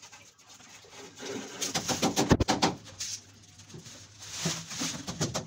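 Hammer tapping in quick runs at the edge of a PVC wall panel, fixing it with small metal clips, with one heavier blow about two seconds in and a few more taps near the end.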